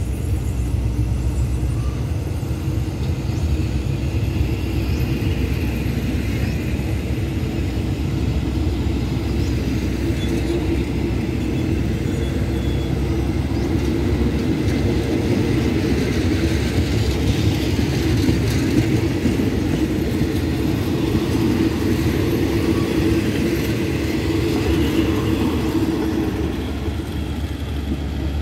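Passenger coaches of a train rolling past a platform as it pulls out, a steady rumble of wheels on the rails that grows a little louder midway.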